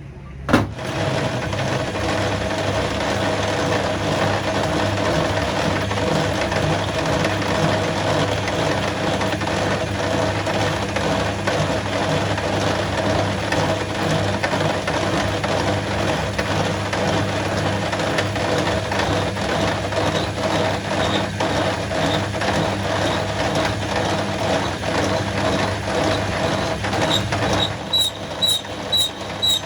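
A heavy machine starts with a sudden knock and runs steadily, a low hum and a steady mid tone over dense mechanical noise. Near the end a high-pitched beep starts repeating about twice a second over it.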